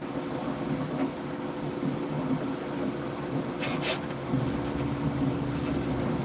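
Bambu Lab H2C 3D printer running a print: its motors and fans hum in several steady tones, with two quick bursts of noise a little past halfway.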